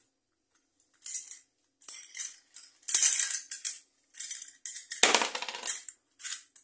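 Small hard parts rattling and clinking in irregular bursts, as if rummaged through by hand in a container, starting about a second in.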